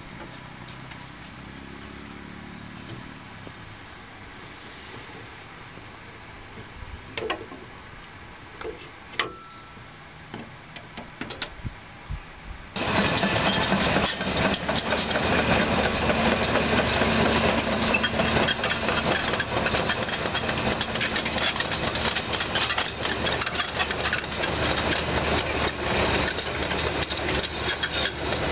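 Caterpillar 320D2 hydraulic excavator: a low steady hum with a few knocks and clicks, then about halfway through a sudden step up to the loud, steady noise of its diesel engine and hydraulics as the machine works.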